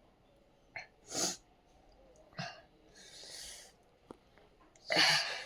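A person sneezing and sniffing in short separate bursts, about four in all, the loudest near the end, set off by snorted sneezing powder.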